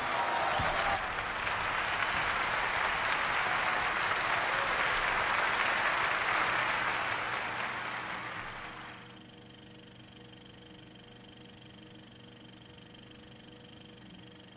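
A dense, crackling patter of noise like applause that fades out about nine seconds in, leaving only a faint steady hum.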